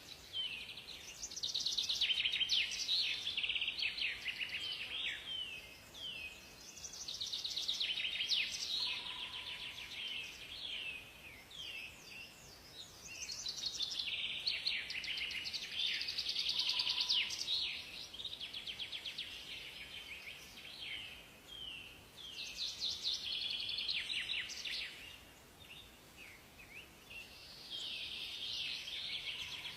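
Songbirds singing: high, rapid trilling song phrases lasting a few seconds each, coming in about five bursts with short pauses between, over a soft steady hiss. A few faint short whistles sound lower in pitch.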